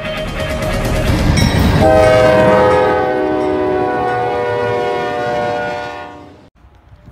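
Diesel locomotive air horn sounding one long chord of several notes over the rumble of a passing train, starting about two seconds in and fading before cutting off near the end.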